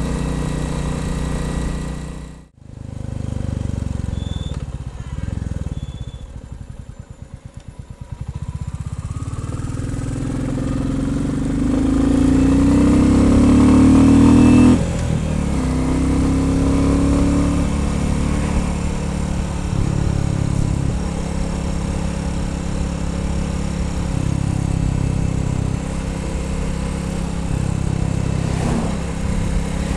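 Royal Enfield Bullet 350 single-cylinder engine on the move. The sound drops out suddenly and briefly about two and a half seconds in. The engine then runs slowly and quietly with its separate beats audible, before pulling up in pitch. The rise breaks off suddenly about halfway through, as at a gear change, and the engine then runs steadily.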